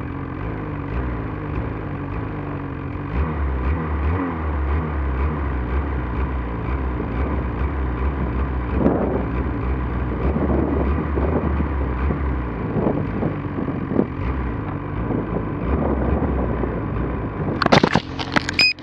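Snowmobile engine running while riding through deep powder. It pulls harder from about three seconds in and eases off after about twelve seconds. A burst of loud knocks comes near the end.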